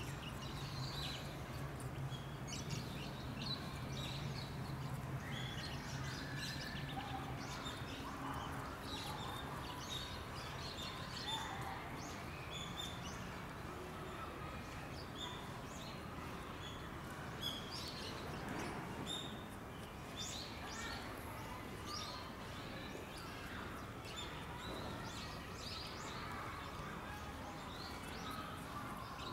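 Small birds chirping, many short high chirps scattered throughout, over a steady outdoor background hiss. A low steady hum runs underneath for the first several seconds, then fades.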